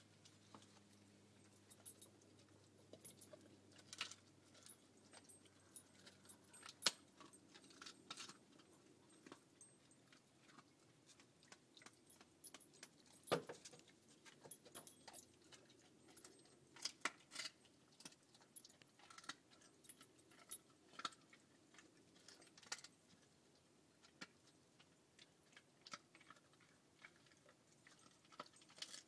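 Airedale terrier chewing raw beef rib bones, crunching them: irregular sharp cracks and clicks, a few much louder than the rest.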